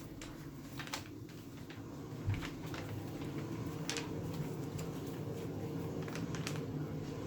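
Low steady hum of a hall, with a few scattered light knocks and clicks and one dull thump about two seconds in.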